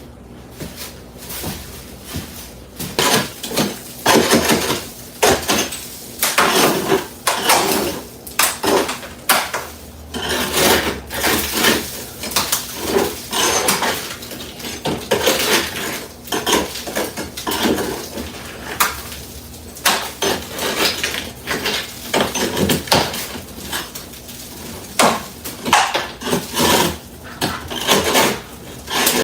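Irregular clattering and clinking of hard objects being handled and knocked together, many sharp knocks in quick, uneven succession.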